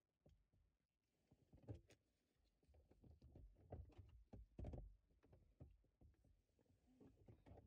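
Near silence inside a parked car's cabin, with faint scattered knocks and small handling sounds.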